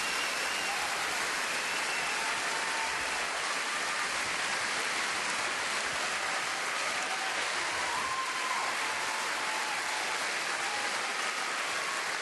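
Steady audience applause from a large theatre crowd.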